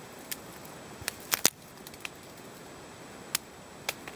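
Scattered sharp ticks and small cracks of ice on ice-glazed twigs, about seven in all with a close pair the loudest, over a steady hiss.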